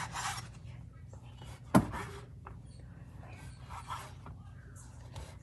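Kitchen handling sounds as a chef's knife is brought to a baguette on a wooden cutting board, with one sharp knock a little under two seconds in, over a steady low hum.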